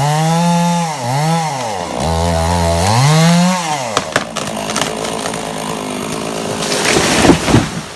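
Chainsaw engine revving, its pitch dipping and rising again several times as it bogs in the cut. About four seconds in come a few sharp cracks, and the sound turns rough and noisy, loudest near the end.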